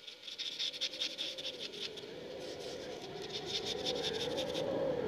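Pen nib scratching on paper in quick, irregular strokes as someone writes by hand, over a low wavering drone that slowly grows louder.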